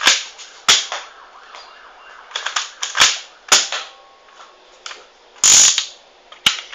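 X-Shot toy foam-dart shotgun being cocked and fired: a string of about half a dozen sharp plastic snaps and clacks, with fainter ticks between them and a longer noisy burst about five and a half seconds in.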